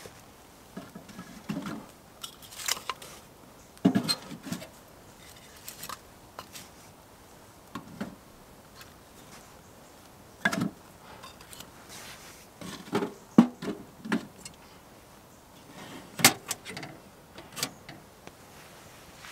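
Titanium wood-burning tent stove being lit: scattered crackles and pops as the split kindling catches, with irregular metal clinks and knocks from the stove and its door being handled and shut.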